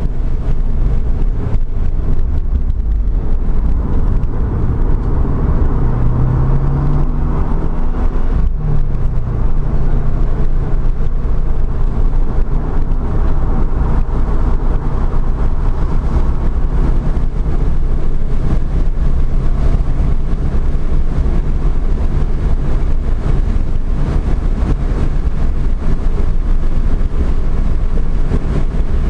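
Subaru WRX's turbocharged flat-four engine running hard at track speed, heard inside the cabin over road and wind noise. The engine note climbs a few seconds in and dips briefly at about eight and a half seconds.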